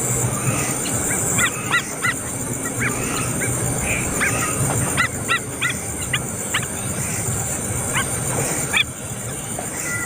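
Birds calling: a scatter of short, harsh, repeated calls, some in quick runs of two or three, over a steady background hiss.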